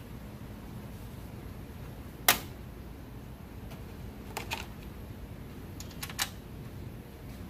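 Sharp clicks and taps of tools and parts being handled. The loudest comes about two seconds in, then a few lighter clicks in pairs later on.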